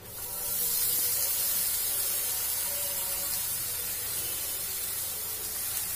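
Hot melted jaggery sizzling in a frying pan as grated coconut is poured in: a hiss that starts suddenly, peaks about a second in and slowly eases off.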